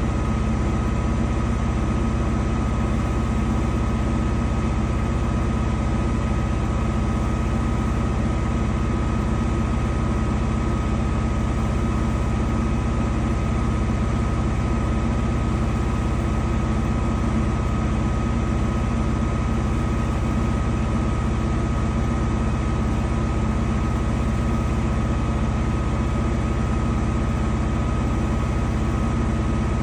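Danube 20 kg commercial washing machine running steadily, a constant motor hum with a fixed high whine.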